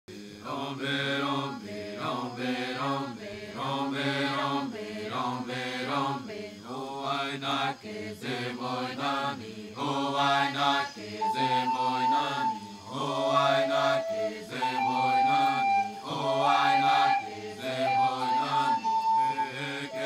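Low chanted singing in a repeating line, with a flute joining about eleven seconds in and playing long held high notes over the chant.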